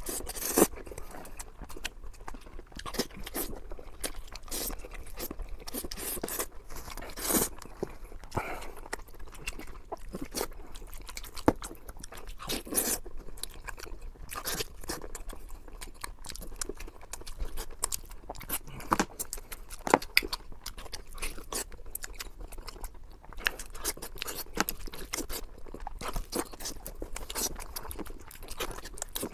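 A person chewing and biting crunchy food close to the microphone, with many irregular sharp crunches and wet mouth sounds.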